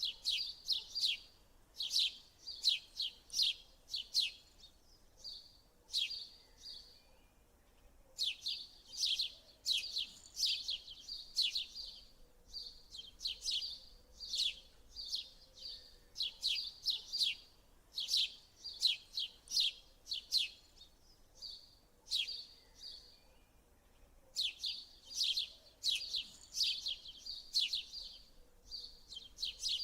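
Small birds chirping: rapid high, falling chirps in bouts of about six seconds, broken by short pauses and repeating about every eight seconds.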